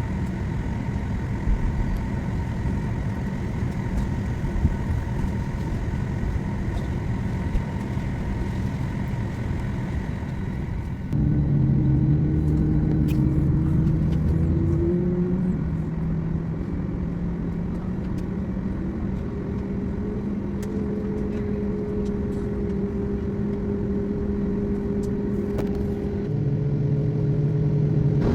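Engine and air-conditioning hum inside the cabin of a Boeing 737 MAX on the ground. About a third of the way in the noise steps up suddenly as new engine tones come in and rise a little before holding steady, and it grows louder again near the end, as the engines are throttled up.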